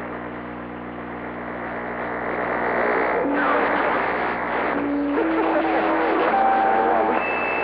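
CB radio receiver hissing with skip static, with several steady heterodyne whistles underneath. About three seconds in, warbling, wavering tones join as other carriers key up on the channel, and the whistles change pitch a couple of times.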